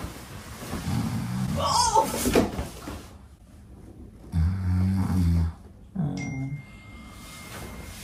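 A man's loud put-on snoring: three rattling snores a couple of seconds apart, the middle one the longest and loudest.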